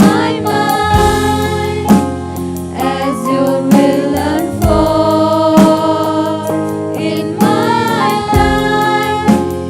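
Congregation and worship team singing a gospel hymn with keyboard and drum accompaniment, with a steady beat.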